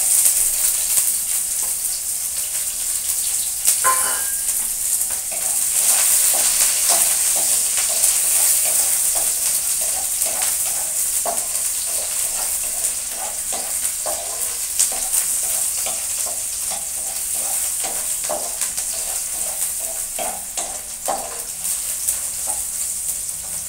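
Chopped garlic and onion sizzling in hot oil in a wok, with a steady frying hiss that starts as they are scraped in from a plate. A wooden spatula stirs them throughout, giving many short scraping strokes against the pan.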